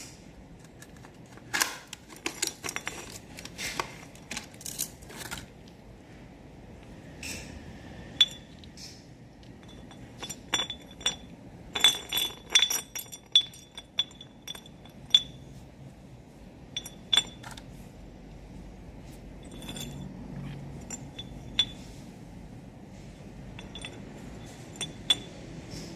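Sharp metallic clinks, taps and light scrapes in irregular clusters, some ringing briefly, as the metal parts of a Yamaha Neo 125 scooter's CVT variator are handled and knocked together.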